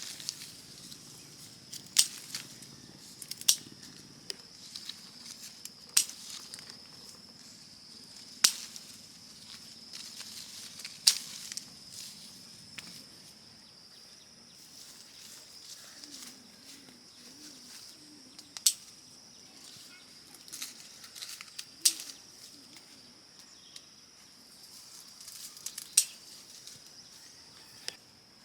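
Sharp knocks or clicks every two to four seconds over a steady high-pitched drone of insects.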